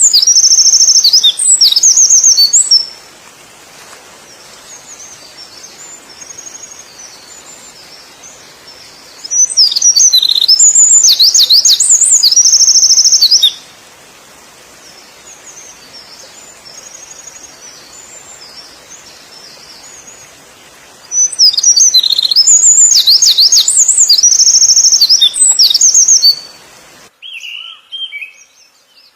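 A songbird singing loud, rapid, high-pitched phrases of trills and whistles in three bursts of a few seconds each, with steady hiss between them. Near the end the hiss stops and a different bird gives a few softer, lower chirps.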